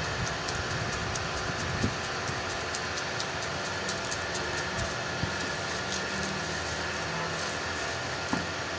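Steady street noise with light, irregular clicks of a knife scoring and scraping watermelon flesh off the rind into a metal pot, and a soft knock about two seconds in and another near the end.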